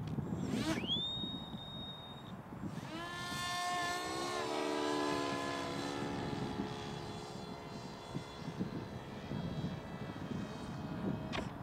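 Motor of a radio-controlled F-117 stealth-fighter model plane: it spools up quickly to a steady high whine at the hand launch, then its pitched whine passes by, dropping in pitch, and slowly fades as the plane flies off.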